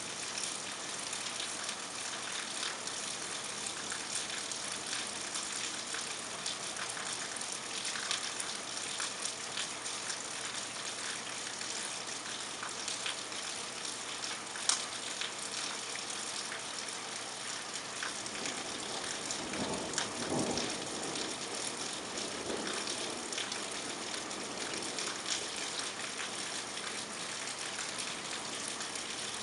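Steady rain falling, with scattered drops ticking close by and one sharper click about halfway through. About twenty seconds in, a vehicle swishes past on the wet road, rising and falling over a couple of seconds.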